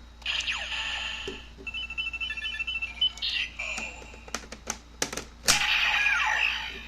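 Electronic sound effects from a Kamen Rider Build Ridewatch and Ziku-Driver toy belt, played through their small speakers: a falling sweep, a run of chiming beeps, then several sharp clicks and a louder burst of electronic sound with another falling sweep near the end.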